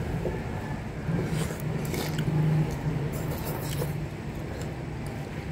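Slurping and chewing of thick lomi egg noodles, several short wet slurps, with spoons and forks scraping against ceramic bowls, over a steady low hum.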